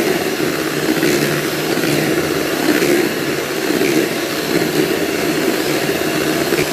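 Electric beater running steadily, whipping cream that has begun to turn fluffy.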